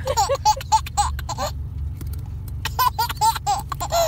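Baby laughing in short high-pitched bursts, in two runs with a pause of about a second between them, over a steady low rumble inside the car.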